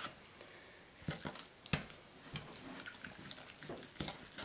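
Chef's knife slicing horizontally through a raw boneless chicken breast to butterfly it: faint, scattered wet squelches and clicks, the sharpest about a second and a half in.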